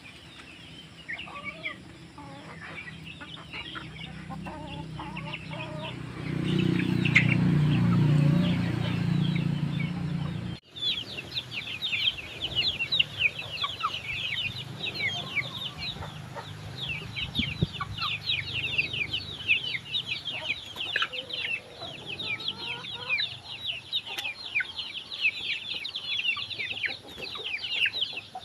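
Young chickens peeping: many quick, high, falling notes, thickest after an abrupt cut about ten seconds in. Before the cut there are scattered calls over a low rumble that swells from about six seconds in.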